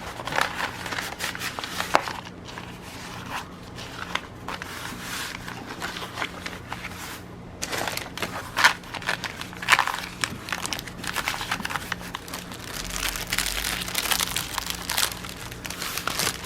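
Paint-by-numbers kit packaging and folded canvas being handled: irregular rustling and crinkling, with a few sharper crackles about halfway through.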